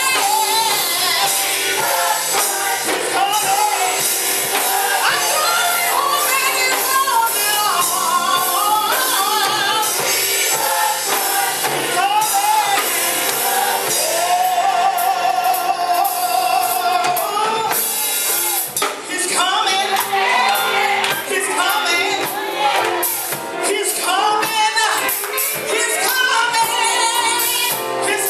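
Live gospel choir singing with a female lead and instrumental accompaniment, with a long held note about halfway through.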